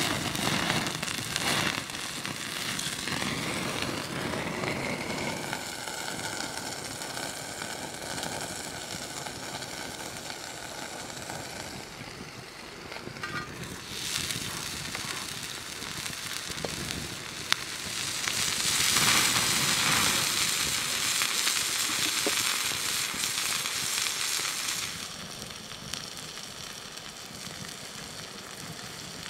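Beef burger patty sizzling on a hot stone slab over an open wood fire, with the fire crackling and popping. The sizzle swells louder for several seconds past the middle.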